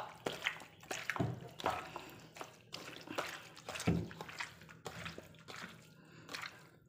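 Wet squelching and squishing of sliced pork being kneaded by hand in a soy sauce, garlic, sugar and pepper marinade, a quick irregular run of squishes with two fuller, deeper squelches.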